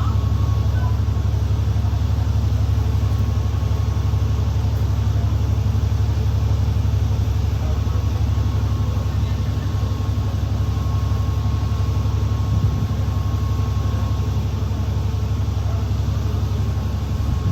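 School bus engine running with a steady low drone, heard while the bus is under way, with a faint steady whine above it.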